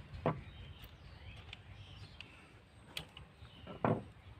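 Handling noise as a wire is worked into the terminals of a plastic electrical switch board: two short scuffs, one near the start and one near the end, and a sharp click just before the second. Faint bird chirps sound in the background.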